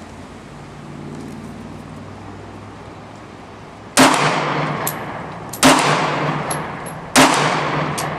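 Three shots from a Glock 36 .45 ACP pistol, about a second and a half apart, each with a long echoing tail.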